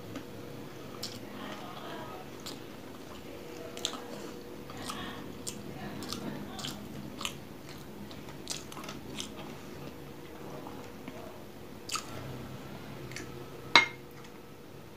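Close-up mouth sounds of eating rice and curry by hand: chewing with many small wet clicks. Near the end comes one sharp, louder clink, as a glass bowl is picked up.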